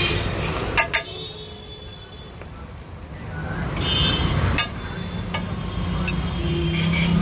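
Metal tongs clinking against a metal griddle (tawa), twice in quick succession just under a second in and a couple more times later, over a steady low rumble of street traffic.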